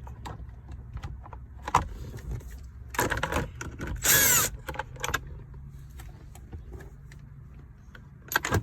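Hand-tool work on dashboard trim: small metal clinks and rattles of a 7mm socket wrench and loose bolts, with a brief loud squeak about four seconds in. A steady low hum runs underneath.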